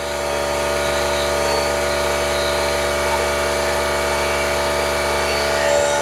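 Portable electric air compressor running steadily, its motor drone swelling over the first half-second and then holding even.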